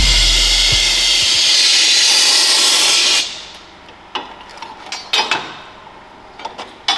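A pressurised jet hissing steadily for about three seconds, cutting off suddenly, followed by a few light clicks and knocks of tools.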